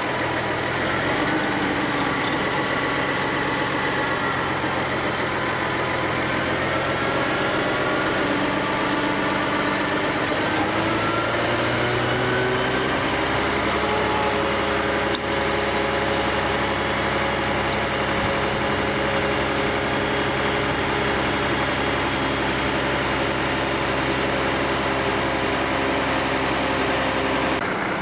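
Boom truck's engine running steadily to power the crane, its pitch rising about halfway through and then holding at the higher speed. There is one sharp click shortly after.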